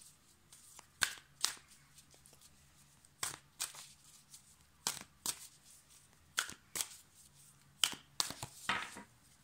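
Tarot cards of the Casanova Tarot deck being shuffled by hand off to the side: about five pairs of short, sharp card slaps, the pairs coming roughly every second and a half, with a longer rustle near the end.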